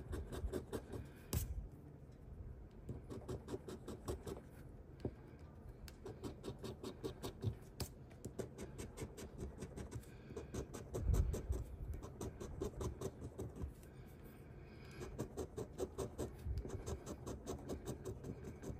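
A coin scratching the coating off a scratch-off lottery ticket in quick back-and-forth strokes, in runs broken by short pauses. A dull bump about eleven seconds in.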